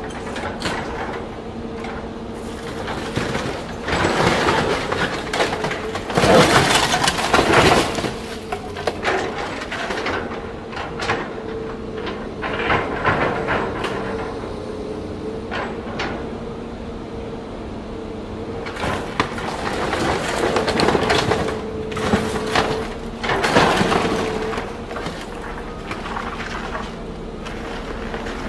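A Caterpillar hydraulic excavator's grapple crushing and tearing a Mercedes-Benz SLS AMG's body: loud bursts of crunching, cracking metal over the steady drone of the excavator's engine and hydraulics. The crunching comes in several surges, loudest a few seconds in and again about two-thirds of the way through.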